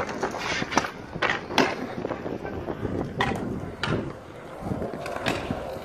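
Stunt scooter wheels rolling over concrete, with about half a dozen sharp clacks and knocks at irregular times as decks and wheels strike the ground.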